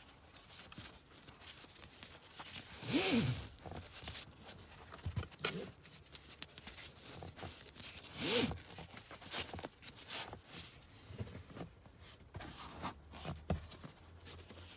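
Nylon webbing of a Maxi-Cosi Vita Smart car seat's top tether strap being pulled through its adjuster to tighten it: two loud zips, about three and eight seconds in, each rising and falling in pitch, with quieter rustling of the strap between.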